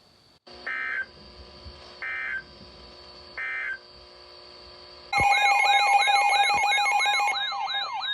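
Emergency alert tones on NOAA Weather Radio: three short digital header bursts about 1.3 seconds apart, then a loud warbling alarm with rapid repeating pitch sweeps, about three or four a second, which signals a new warning about to be read.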